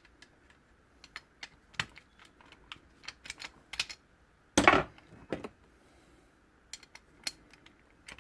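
Light, scattered clicks and taps of a VW steering lock and hand tools being handled during dismantling, with one louder knock about halfway through.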